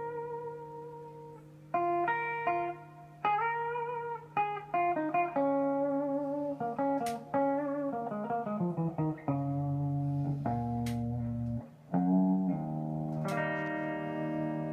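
Electric guitar played through a 1950s–60s Bouyer 17-watt valve amplifier (EF40 preamp, EL34 output and 5Y3 rectifier tubes): single notes and chords, a quick run of notes falling in pitch a little past halfway, then a few low notes, ending on a held, ringing chord.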